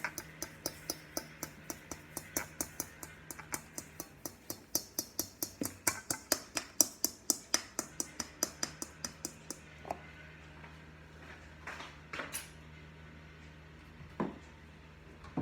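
Rhythmic clicking of a baking utensil being worked in the ingredients, about four sharp clicks a second, stopping about nine seconds in, followed by a few separate knocks.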